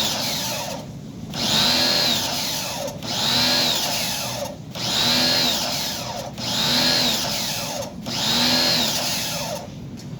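A handheld power tool's electric motor is run in about six short bursts, roughly one every second and a half. Each burst's whine rises as the motor spins up, then falls as it winds down.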